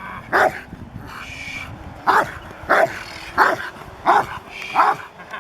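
A young Rottweiler barking in protection training: one bark about half a second in, then after a pause a run of five barks about two-thirds of a second apart.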